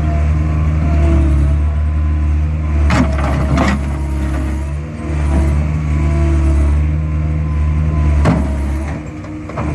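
Skid steer engine running steadily under load, with a few sharp knocks about three seconds in and another near the end.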